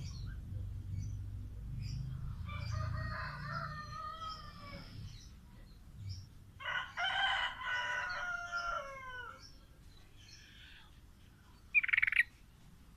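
A rooster crows twice, each crow two to three seconds long and falling in pitch at the end, the second louder. Near the end comes one short, sharp bird call, the loudest sound here.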